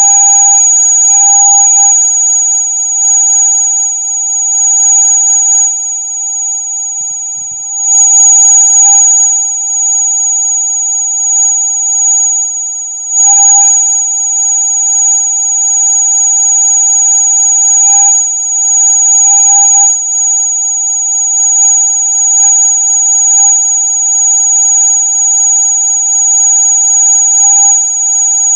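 Electronic rat-repellent sound: a steady, piercing high-pitched tone layered with several other fixed tones, including a lower one, its loudness wavering with a couple of brief dips.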